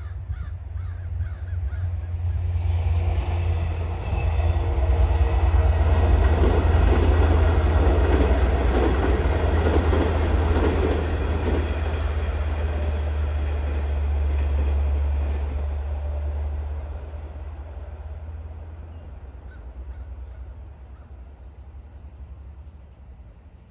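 Long Island Rail Road diesel train with double-deck coaches passing over a bridge: the locomotive's low engine drone and the wheels' rumble on the rails swell over the first few seconds, peak, then fade away as it moves off.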